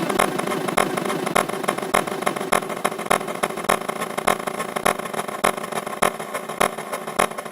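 The US Emergency Alert System alarm tone layered on itself an enormous number of times, smeared into a dense, harsh noise with irregular crackling clicks several times a second.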